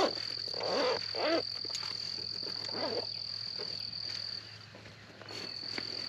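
Calling frogs and insects: a steady high-pitched trill that breaks off for about a second near the end, with a few short calls rising and falling in pitch in the first three seconds.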